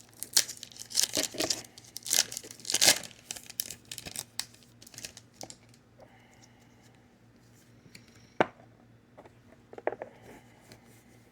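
Foil Pokémon booster pack wrapper being torn open and crinkled, loudest in the first few seconds, then quieter rustling with a sharp click or two near the end.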